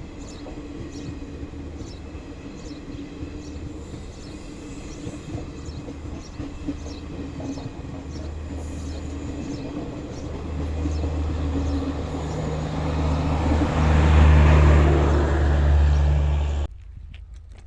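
Maharajas' Express passenger train running past on the track, its wheels clicking over rail joints in an even rhythm over a steady rumble. A deep humming rumble builds and grows loud near the end, then the sound cuts off suddenly.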